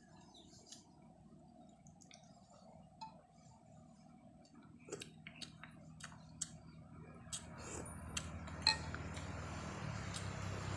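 Eating sounds: scattered small clinks and clicks of a utensil on a plate or bowl. From about seven seconds in, a steady engine hum rises and grows louder, like a vehicle approaching.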